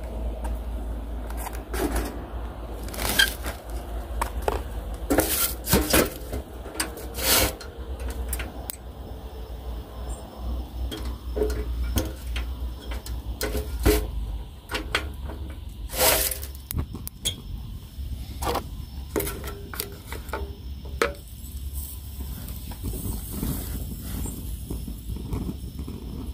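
Pine cones burning in a small stainless-steel mini wood stove, crackling with sharp, irregular pops, a handful of them loud, over a steady low rumble.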